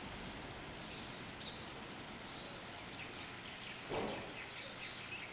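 Outdoor ambience of steady hiss with scattered short, high bird chirps, and a brief thump about four seconds in.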